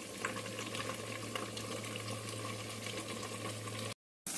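Covered pan of chicken curry cooking on a gas stove: a steady soft hiss with faint crackles over a steady low hum. Near the end the sound drops out briefly, then a brighter sizzle starts.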